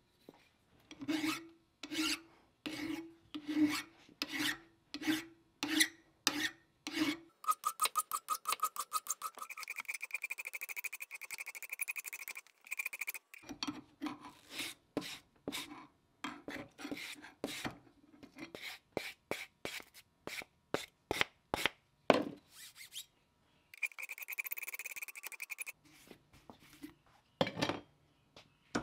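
Hand file stroking back and forth over a threaded steel mallet part held in a vise, about three strokes every two seconds. Twice the file is cleaned with a file card, its wire bristles dragged across the file's teeth in a fast buzzing rattle: a long pass near the middle and a shorter one near the end.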